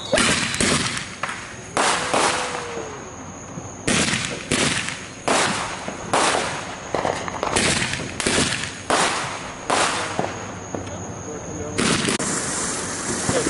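Consumer fireworks going off: about a dozen sharp bangs at irregular intervals, some close together. About twelve seconds in, a steady hiss takes over.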